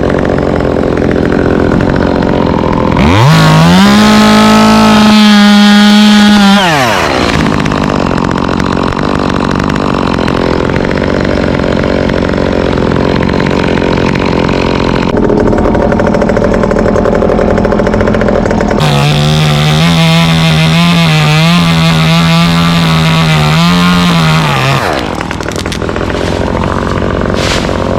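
Two-stroke gas chainsaw running, revved up to full throttle twice for a few seconds each, about three seconds in and again about nineteen seconds in, with the pitch wavering on the second as the chain cuts into the mango wood.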